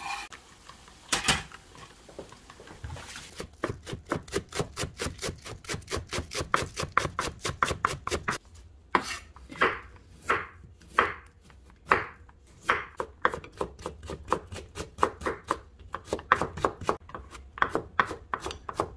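Cleaver chopping vegetables on a wooden cutting board, dicing onion and then mincing carrot. It starts with a few single cuts, then goes into quick runs of strokes at about five a second, broken about halfway through by a stretch of slower, separate cuts.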